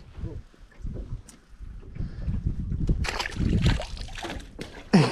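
Low, gusty rumble of wind on the microphone, with handling rustles and a few light knocks; the rustling grows louder about three seconds in.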